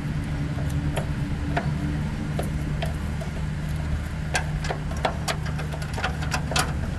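A steady low engine hum, with irregular sharp clicks or taps over it that come more often after about four seconds.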